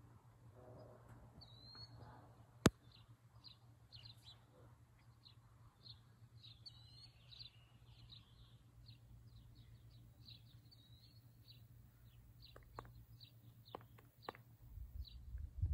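Small birds chirping, many short high chirps and a few slurred calls throughout, with one sharp click about two and a half seconds in. A low rumble comes in near the end.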